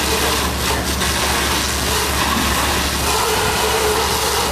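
Fire engine running steadily while pumping water to the hose lines: a constant low rumble under an even hiss.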